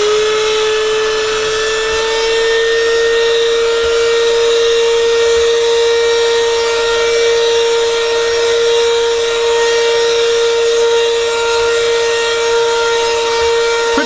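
Afbest cordless handheld vacuum cleaner switched on. Its small motor spins up with a quickly rising whine, then runs at a steady high whine over a rush of air as it sucks up fine dust, which blocks up its filter.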